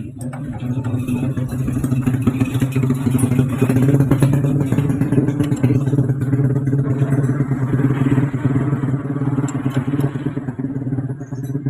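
A motorcycle engine running steadily at an even speed.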